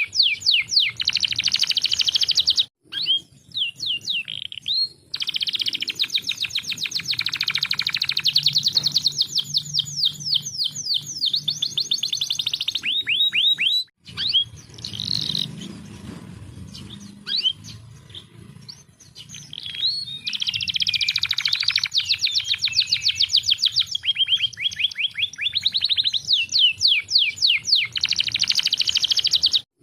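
Domestic canary singing long, fast trills and rolls of rapidly repeated chirping notes. The song breaks off briefly a few times and goes quieter and sparser for several seconds in the middle before the fast trills return.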